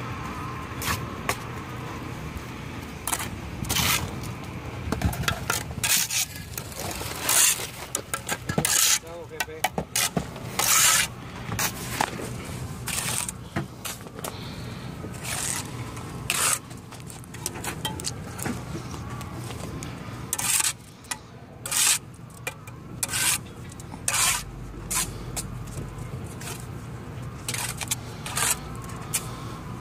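Steel mason's trowel scraping and slapping mortar as concrete blocks are buttered and laid: a quick, irregular run of short, sharp scrapes of steel on mortar and block.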